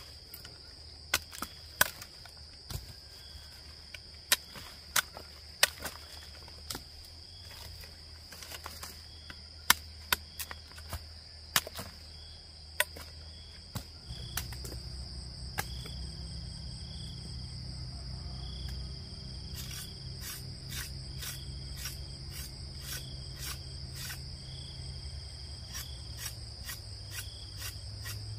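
Insects chirring steadily and shrilly, with sharp irregular knocks, like chopping, about once a second. About halfway through, a low steady hum starts and the knocks turn quicker and lighter.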